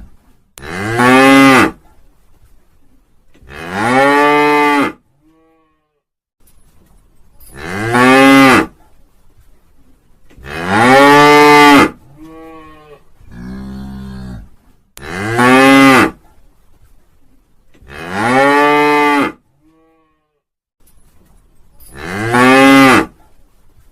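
Cow mooing over and over, a loud call about every two to three seconds, each lasting about a second and rising then falling in pitch, with a few fainter calls in between.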